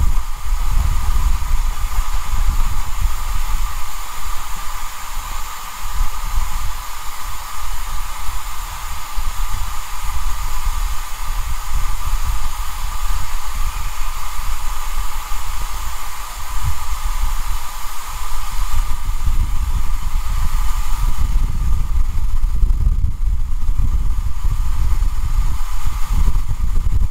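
SE&CR No 65 steam locomotive pulling its train away into the distance: a steady hiss over a heavy, uneven low rumble, with no distinct beats.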